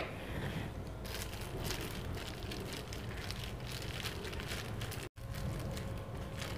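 Thin plastic sheet crinkling and rustling faintly as a wooden rolling pin rolls soft khoya dough flat inside it. The sound cuts out for an instant about five seconds in.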